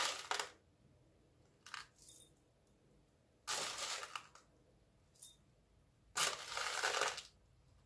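Packet of Olivem 1000 emulsifier pellets being handled, its packaging rustling and crinkling in separate bursts, three longer ones and a few brief ones, with the pellets shifting inside.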